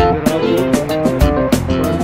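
Background music track: a plucked guitar melody over a steady beat.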